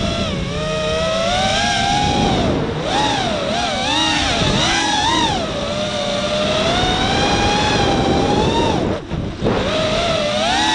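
Walkera F210 FPV racing quadcopter's motors and HQ propellers whining, the pitch rising and falling constantly as the throttle changes. About nine seconds in the sound drops away for a moment, then climbs again.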